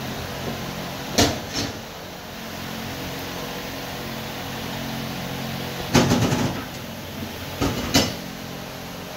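Steel gearbox gears and parts clinking and knocking as they are handled and set down. There are two knocks about a second in, a quick rattling clatter around six seconds, and two more knocks near the end, over a steady background hum.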